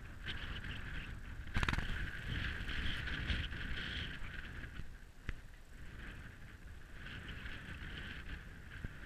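Wind buffeting a handheld camera's microphone while walking on a dirt and gravel mountain trail, with a steady hiss that swells and fades, crunching footsteps, and a few sharp knocks, the loudest about a second and a half in.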